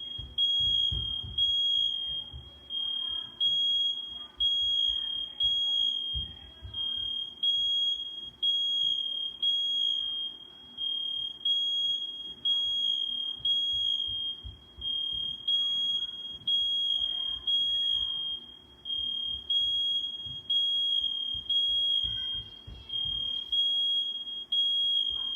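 Household smoke alarm sounding, a loud high-pitched beep repeating evenly a little more than once a second, set off by smoke from cooking zucchini.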